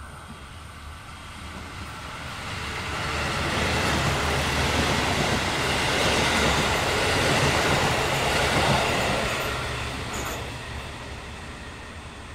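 KiHa 185 series diesel railcar train passing through a station without stopping. The sound of its diesel engines and its wheels on the rails grows from about two seconds in, is loudest for several seconds as the cars go by, then fades away.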